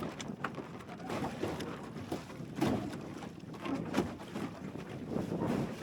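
Strong, gusty wind buffeting an action camera's microphone aboard a small sailing dinghy, an uneven rushing with sudden louder surges every second or so.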